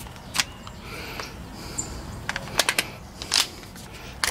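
Handling clicks and light knocks of a pressure washer's spray wand parts as they are fitted together, a few sharp clicks spread over the few seconds, with a small cluster about two and a half seconds in.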